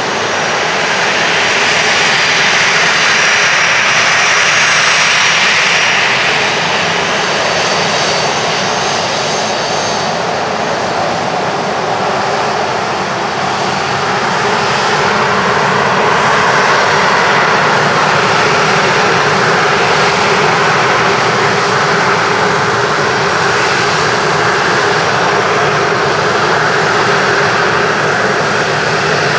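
Boeing 737-400's twin CFM56-3 turbofans running at low taxi power as the jet rolls slowly past, a steady jet rush with a high whine. The level stays fairly even, with no takeoff spool-up.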